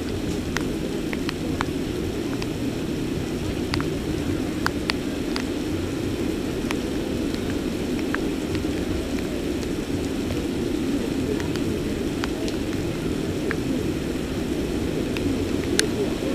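Heavy rain falling steadily, a constant rushing hiss, with scattered sharp ticks of drops striking close to the microphone.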